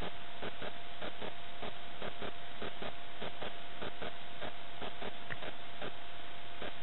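A body-worn camera jolting and knocking with each running stride, about three knocks a second, over a steady high electronic whine from the camera.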